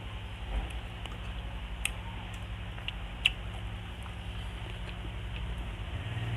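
Close-up eating sounds of fried fish being picked apart by hand and chewed: soft mouth sounds and a few small clicks, the sharpest about three seconds in, over a steady low hum.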